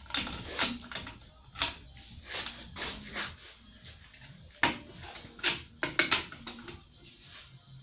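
Irregular metallic clinks and knocks of a 27 mm socket and long breaker bar on the rear hub nut of an Opel Corsa C's brake drum, as the tool is fitted and worked against the nut. The loudest, ringing knocks come about five to six seconds in.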